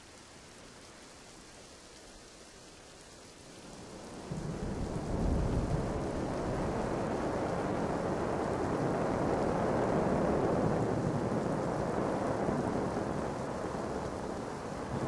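Steady rain with a low rumble of thunder, faint at first and then swelling about four seconds in to a loud, even downpour.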